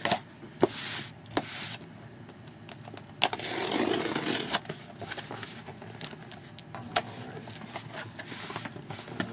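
A cardboard shipping box being opened and its packing handled: scraping, rustling and tearing, with scattered sharp knocks and clicks. The loudest stretch is a rough rasping tear about three seconds in.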